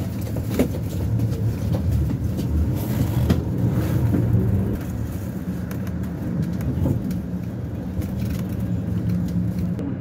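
Steady engine and road rumble heard from inside a moving vehicle, with a few small rattles.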